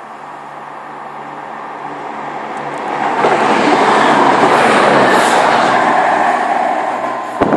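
A passenger train passing through the station at speed without stopping: its noise builds steadily as it approaches, becomes a loud rush of wheel and air noise as it goes by from about three seconds in, and eases off near the end. A sharp knock sounds just before the end.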